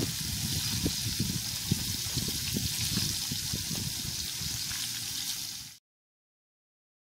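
Hot oil sizzling steadily as small mojarra fish fry in a metal pan over a wood fire, with small crackles throughout. The sound cuts off abruptly near the end.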